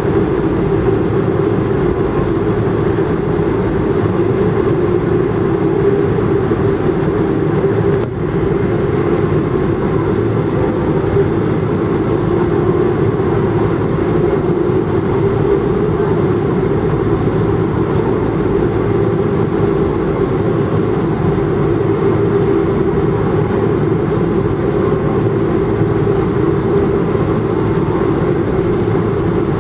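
Boeing 777-200 airliner heard from inside the cabin: a steady, loud drone of engines and rushing air, with one brief dip about eight seconds in.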